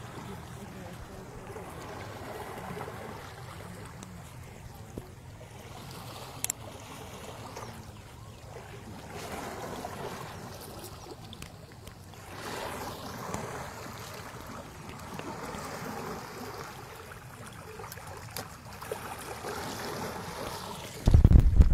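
Shallow river water flowing and splashing as an elephant wades through it. Near the end there is a brief loud low rumble.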